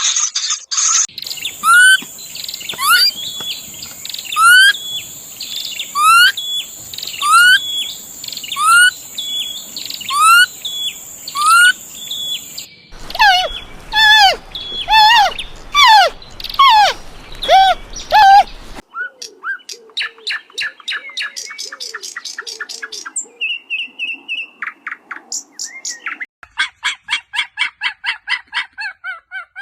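Bird calls that change abruptly in kind several times: first a hooked, rising call repeated about every second and a half, then a run of louder calls coming faster, then quieter, rapid chattering notes that speed into a quick run of many notes a second near the end.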